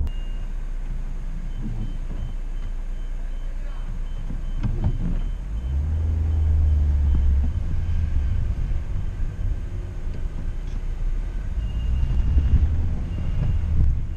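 2011 Honda Civic with a 1.4-litre petrol engine on the move: steady engine and road rumble, swelling to a deep drone for a second or two around the middle. A run of short high beeps sounds through the first half, and a few more come near the end.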